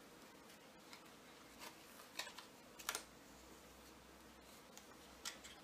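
Faint, scattered small clicks and rustles of narrow washi tape being pulled off its roll and handled.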